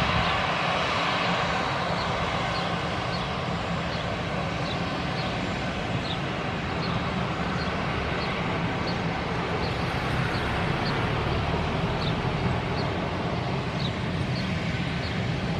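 Airbus A320 airliner's jet engines running steadily at low power as the plane taxis onto the runway before its takeoff roll, a smooth even hum without any spool-up.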